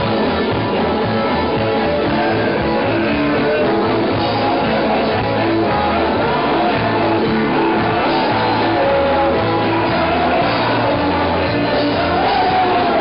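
Live psychobilly-punk band playing loudly, with drums and a bass line moving note to note, and a voice singing over it in the second half.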